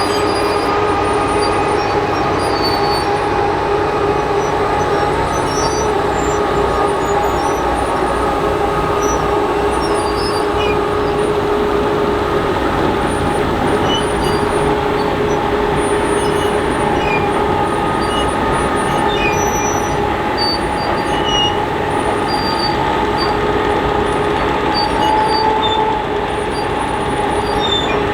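New Holland FR600 forage harvester running steadily, a constant loud drone with a steady whine.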